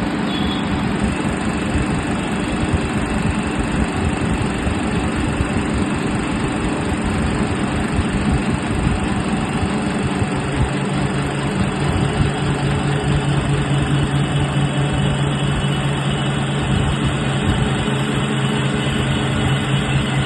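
Adjustable-PCD drilling machine running steadily, a continuous mechanical noise with a low hum that grows stronger about halfway through.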